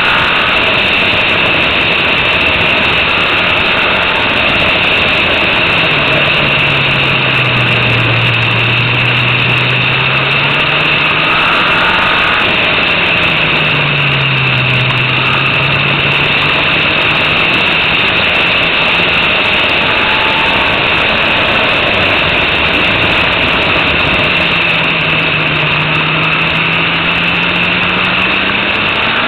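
Formula Renault 2.0 single-seater's four-cylinder engine running hard, heard from an onboard camera under a steady high hiss. The engine note falls and climbs again three times, as the car slows for a corner and accelerates out.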